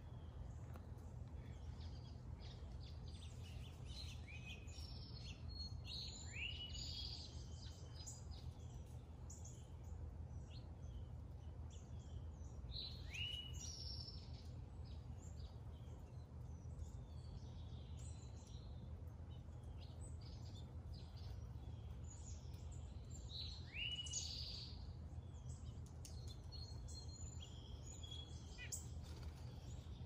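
Songbirds chirping and singing, with one bird repeating the same short phrase three times, a rising note followed by a quick flurry of higher notes, over a steady low hum.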